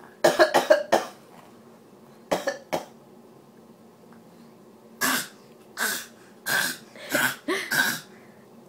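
A young child's put-on coughs, imitating his father's cough: a quick run of four near the start, a pair a couple of seconds later, then five evenly spaced coughs in the second half.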